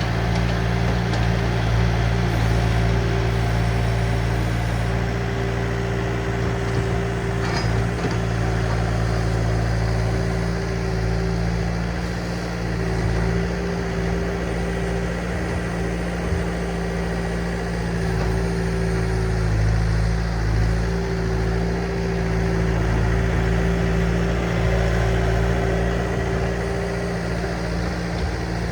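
Diesel engine of a compact earthmoving machine running steadily at a constant speed.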